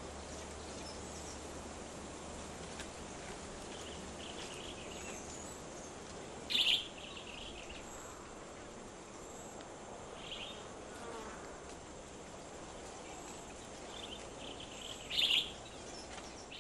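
Forest ambience: a steady buzz of insects with scattered short bird calls, two of them louder, one near the middle and one near the end.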